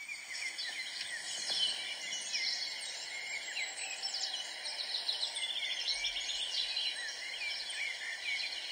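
Morning chorus of many small songbirds, a dense run of overlapping high chirps and trills.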